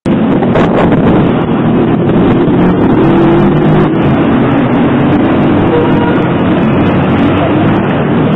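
Loud, steady noise of city street traffic, with engines running and no single event standing out.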